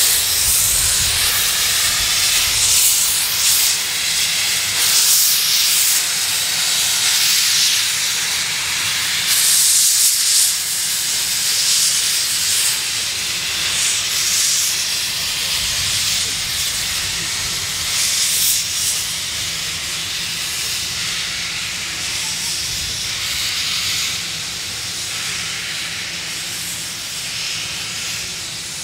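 C56 160 steam locomotive starting off with its cylinder drain cocks open: loud steam hissing that surges every second or two with the engine's strokes, growing gradually quieter.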